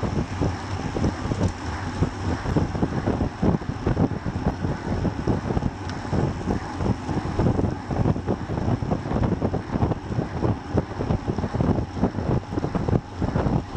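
Wind buffeting a bike-mounted action camera's microphone on a road bike riding at about 35 km/h: a steady, fluttering rush of noise.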